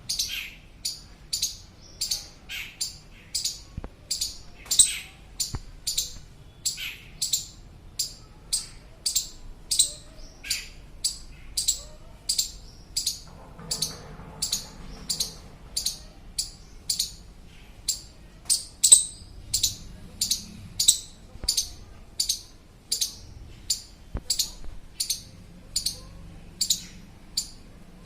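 Indian squirrel giving a long run of loud, sharp chirps, evenly repeated about one and a half to two times a second. The uploader takes it for a call to a companion that has become separated from its group.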